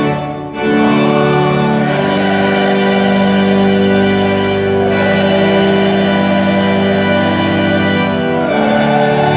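Organ playing slow, held chords, changing chord about half a second in, again at about 2 s and near the end.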